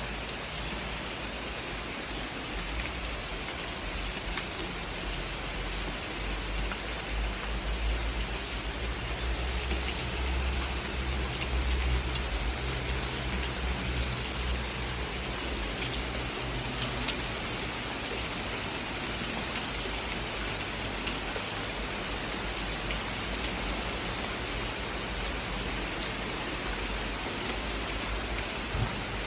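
Rain falling steadily and pattering on surfaces, an even hiss with scattered drop ticks. A low rumble swells through the middle and fades again.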